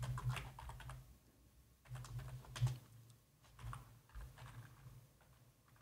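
Computer keyboard typing, quiet, in several short runs of keystrokes with pauses between them.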